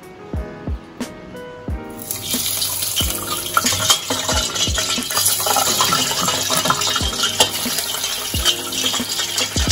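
Hot oil ladled over steamed mahseer fillets in a wire strainer, sizzling loudly from about two seconds in as it crisps the skin. Background music with a steady beat runs underneath.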